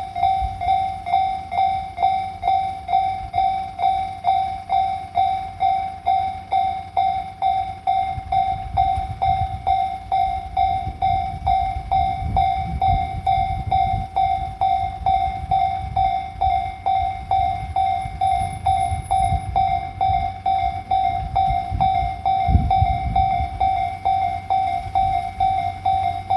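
Japanese level-crossing alarm bell ringing in even, single-pitched dings, about one and a half a second. Under it, the low rumble of the train moving, loudest from about eight to fifteen seconds in and again briefly about twenty-two seconds in.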